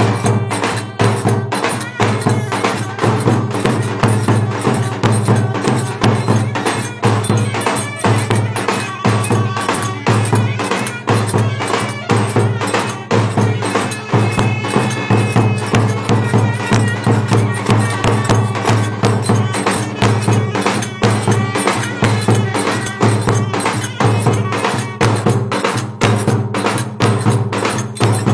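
Turkish wedding dance music led by two clarinets over a fast, steady percussion beat, played without a break.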